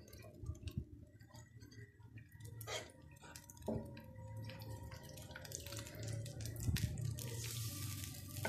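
Wooden spatula stirring milk thickened with cornflour and fried onions in a non-stick frying pan: faint liquid sloshing with light taps and scrapes against the pan. A soft hiss grows louder about seven seconds in.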